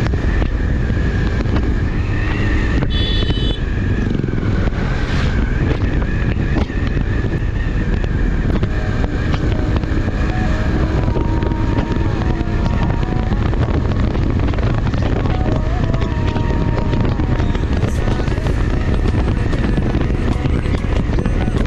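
Motorcycle riding on the road, its engine running steadily under heavy wind rush on the rider's microphone.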